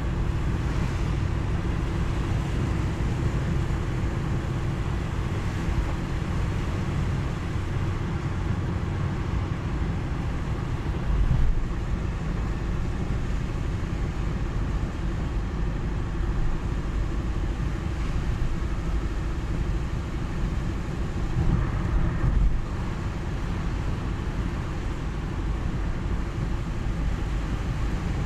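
Car driving on a wet road in the rain: steady low road and engine rumble with the hiss of tyres on wet pavement. It swells briefly louder about eleven seconds in and again about twenty-two seconds in.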